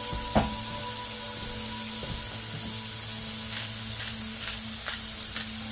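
Smashburger patties sizzling in a hot cast iron braiser: a steady frying hiss. A single sharp knock comes about half a second in, and a few small ticks come in the second half.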